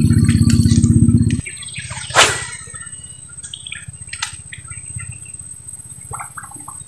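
Background music with guitar and bass cuts off about a second and a half in. After it come small birds chirping now and then and a single brief swish about two seconds in.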